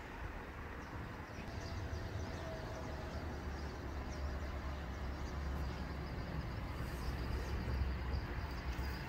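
Outdoor background noise: a low rumble that grows slightly louder over the first few seconds, with faint short high chirps over it.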